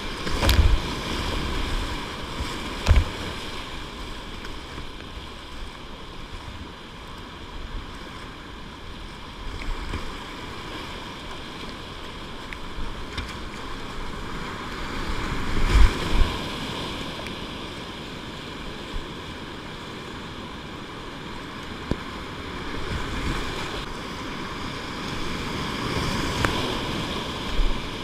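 Whitewater rapids rushing and churning around a kayak, heard from the cockpit, with water splashing against the boat. A few heavy splashes hit with a thump, the loudest a little past halfway.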